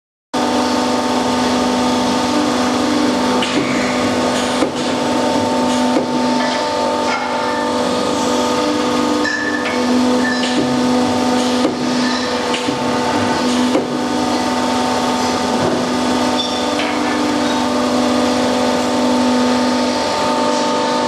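Factory machinery running with a steady electric hum that fades and returns, over scattered metallic clicks and knocks as steel parts are handled in a jig.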